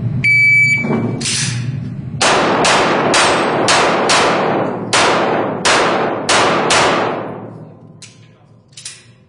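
Electronic shot timer's start beep, then a fast string of about a dozen handgun shots over some six seconds, each with a ringing tail, followed by a few fainter shots near the end.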